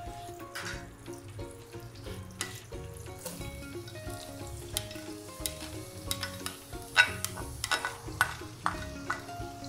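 Chopped onion sizzling as it goes into melted butter and oil in a nonstick kadai, with a plastic spatula scraping and knocking the last of it out of a ceramic bowl: a run of sharp knocks about seven to eight and a half seconds in, the first the loudest.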